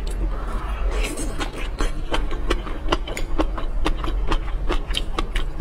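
Close-miked chewing of a roe-topped shrimp: a bite about a second in, then wet mouth clicks at about three to four a second as the shrimp and the flying-fish roe are chewed.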